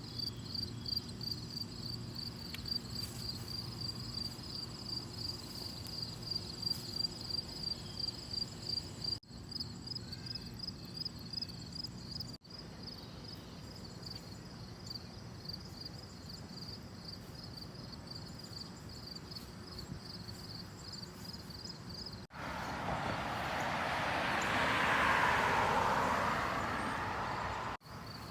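Crickets chirping in a steady, high, pulsed trill, a few chirps a second, which fades after about twelve seconds. Near the end a broad rushing noise swells and dies away over about five seconds.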